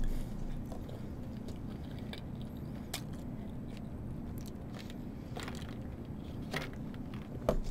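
A person chewing toast quietly with the mouth closed. A few soft mouth clicks come through over a steady low hum.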